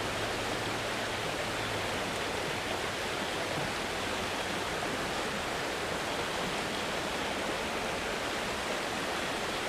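Creek water rushing over rocks, a steady, even rush with no break.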